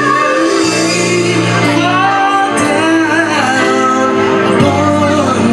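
Live vocal music: several voices singing together into microphones over held low notes.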